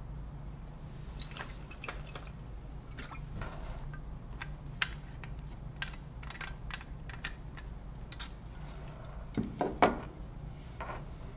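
Small clicks and taps of a plastic travel mug's lid being handled around a sip of drink, with faint liquid sounds, over a steady low hum. Two louder knocks come near the end.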